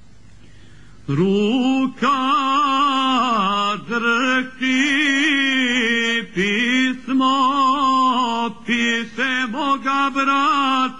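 A man singing a Krajina folk song without instruments. About a second in he slides up into a long held note with a heavy wavering vibrato, and sings on in short phrases with brief breaks between them.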